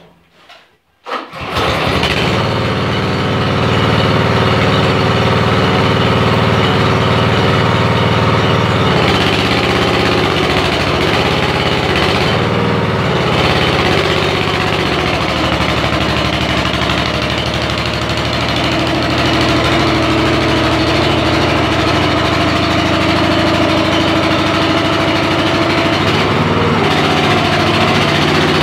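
Small gasoline engine driving the excavator's hydraulic pump. It catches about a second in, then runs steadily. Its tone shifts several times as the hydraulic controls are worked.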